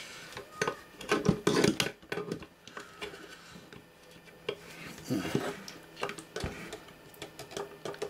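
Pliers clicking and scraping on a seized control knob wrapped in a cloth, with cloth rustling: irregular metal clinks and rubs, a few louder ones about a second in and again past the middle, as the very tight knob is worked.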